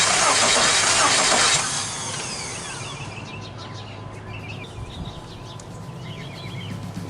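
Car engine running loudly, with a dense hissing noise that drops away abruptly about a second and a half in. A low steady hum follows, with birds chirping over it.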